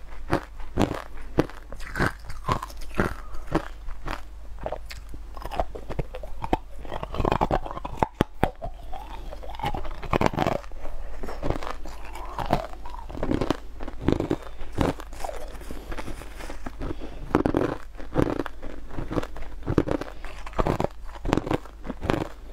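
Close-up crunching and chewing of crushed purple sweet ice, a few sharp crunches a second, bite after bite.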